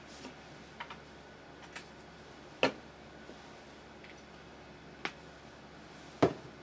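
Scattered sharp clicks and taps of small 3D-printed plastic parts being handled and set down. A few faint ticks are followed by louder clicks about two and a half seconds in and near the end, with a lighter one in between.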